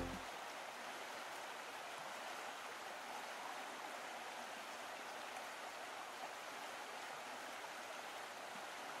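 Stream water running, a steady, even hiss.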